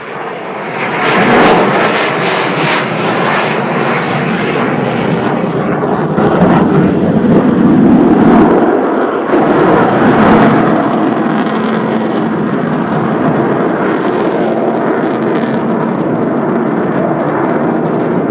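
Avro Vulcan XH558's four Olympus jet engines, very loud on a low flyby. The noise swells about a second in and peaks again around eight to ten seconds in, then holds as a steady rumble.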